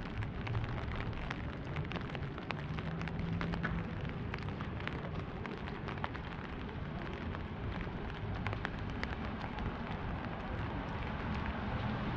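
Light rain on a wet city street: a steady hiss with many scattered drips ticking, over a low rumble.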